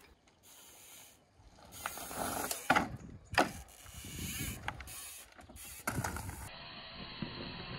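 A trials bike bunny-hopping up onto a stack of wooden pallets: two sharp knocks about two-thirds of a second apart as the wheels land on the wood, amid mechanical rattling and clicking from the bike.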